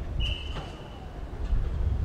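Wind buffeting an unfiltered microphone, making a steady low rumble. A thin, high, steady whistle-like tone sounds from just after the start for about a second, with a few faint distant ticks.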